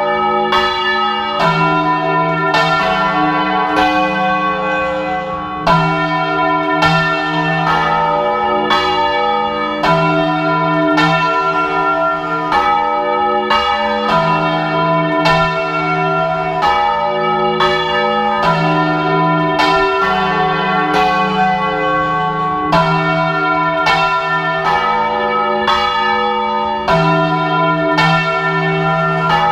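Several church bells of different pitch swung full circle by hand (Spanish volteo), striking about once a second and overlapping in long ringing tones, heard from inside the belfry.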